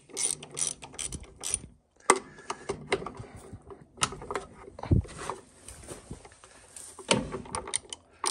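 Ratchet wrench clicking in quick, irregular runs with short pauses as it backs out the starter's mounting bolts.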